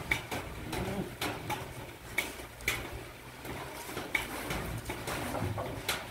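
Several puppies eating food off a concrete floor: irregular chewing and smacking clicks, a few each second.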